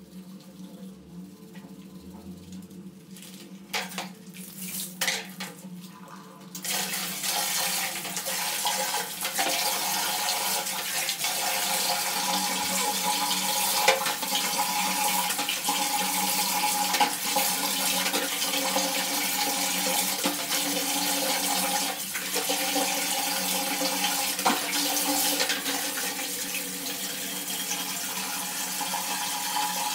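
A few knocks, then about six seconds in a wall tap is turned on and water runs steadily from it into a plastic bucket.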